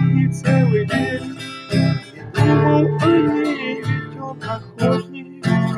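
Acoustic guitar strummed in chords, accompanying a song.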